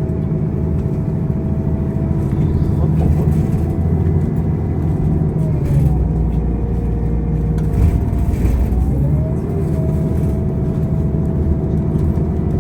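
City bus in motion, heard from inside the cabin: a steady engine and road hum with a drive whine that drops in pitch about five seconds in and climbs back near nine seconds.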